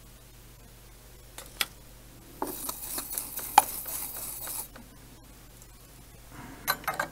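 Small bench-work sounds of soldering quadcopter motor wires to an ESC: a few sharp clicks of tools and wire, and a scratchy noise of about two seconds in the middle with clicks through it.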